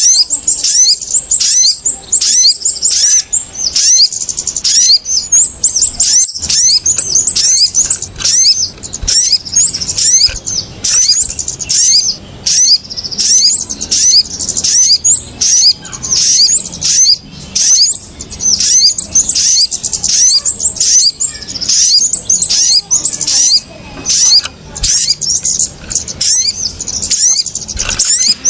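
Bird-lure recording of small birds, kemade and sogon, calling in an agitated flock. Many high-pitched chirps and twitters come rapidly one after another and overlap, with no pause.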